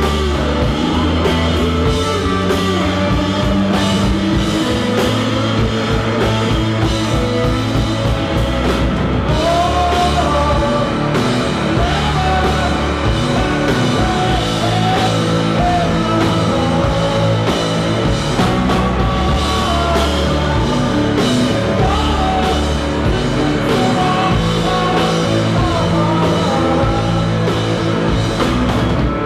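Live blues-rock band playing at full volume: electric guitar and drum kit, with a man's voice singing over them, most clearly from about nine seconds in.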